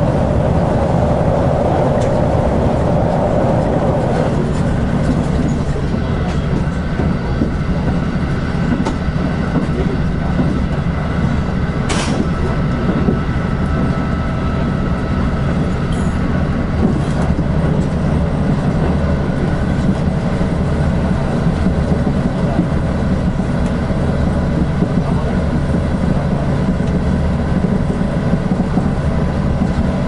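Limited express train running at speed, heard from inside the passenger car: a steady rumble of wheels on rail. A further mid-pitched noise drops away about four seconds in, and there is a single sharp click about twelve seconds in.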